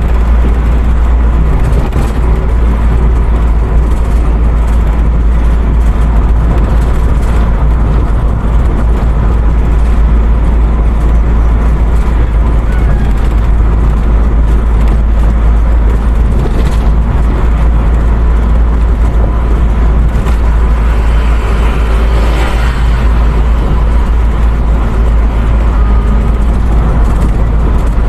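Steady noise of a vehicle driving at speed on the highway: engine and road rumble with a heavy low drone that holds even throughout.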